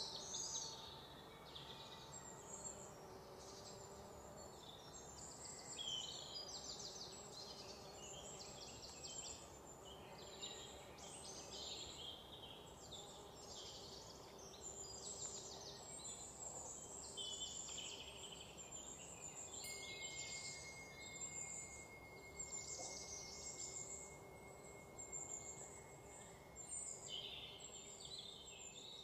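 Birds chirping and trilling, with insects; a steady high buzzing note joins about two-thirds of the way through.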